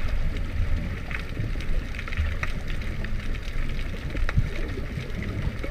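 Underwater ambience picked up by a submerged camera: a muffled low rumble of water moving, with scattered faint clicks and crackles.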